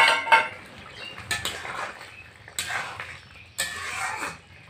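Metal spatula clanking and scraping against an aluminium kadai while stirring a potato and egg curry. A loud ringing metal clank comes right at the start, followed by irregular scrapes and knocks.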